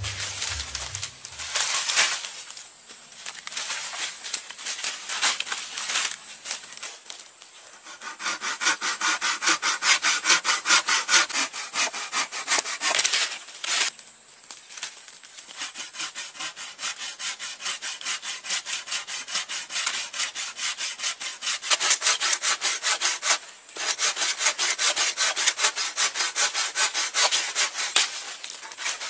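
Folding pruning saw cutting through a wooden branch in quick, steady back-and-forth strokes, with two short pauses between runs of strokes.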